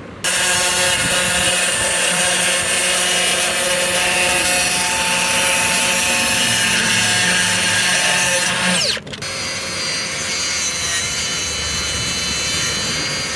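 Power saw cutting wood, running steadily for about nine seconds, stopping briefly, then running again a little quieter.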